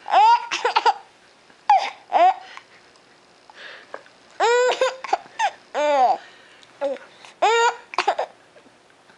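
Baby laughing and squealing in short, high-pitched bursts, several bouts with pauses between them.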